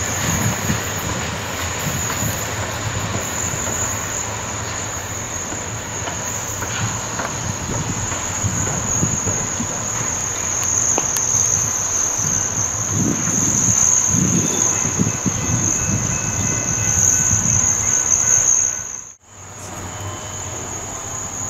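Steady high-pitched chorus of insects, with an uneven low rumble underneath. The sound cuts out briefly about two seconds before the end, then the insects resume.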